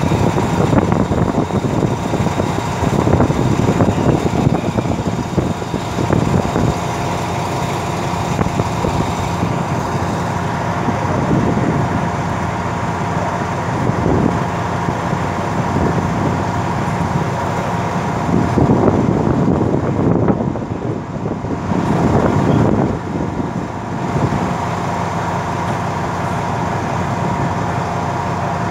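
Diesel locomotive of a stopped passenger train idling steadily: a constant low hum with a thin steady whine over it.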